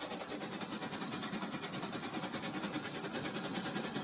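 Rail King battery toy steam locomotive pulling freight cars along plastic track, running with a fast, even rattle that grows louder as it comes closer.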